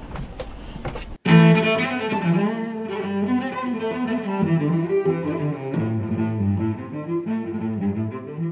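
Background music of bowed strings with a low, cello-like melody. It starts abruptly about a second in, after a brief stretch of wind noise and clicks.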